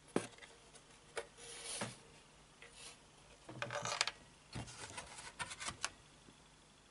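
Handling noise: scattered light clicks and taps with short rubbing scrapes, as the motherboard is handled on the bench.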